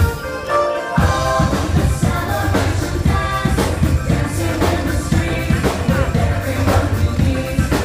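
Upbeat carnival-style music with singing over drums and a strong bass beat. The bass and drums drop out briefly, then the full band comes back in about a second in.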